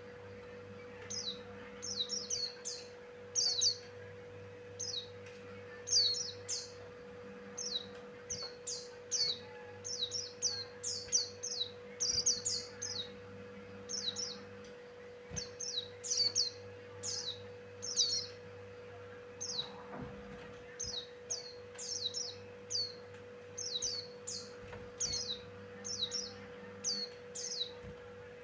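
White-eye (pleci) singing: quick phrases of short, high, falling chirps, repeated over and over, over a steady low hum.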